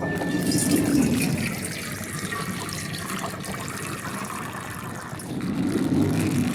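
Water pouring and splashing: a steady rushing sound that eases off after the first second or two and swells again near the end.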